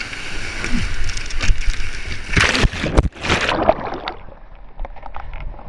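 Water splashing and sloshing around a kayak on a whitewater river, with irregular splashes and knocks. The splashing is heaviest about two to three seconds in, then settles to lighter sloshing.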